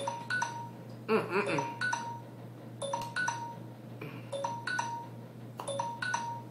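Background music: a melody of short, bell-like chiming notes, a couple each second. A brief murmur of a voice comes in about a second in.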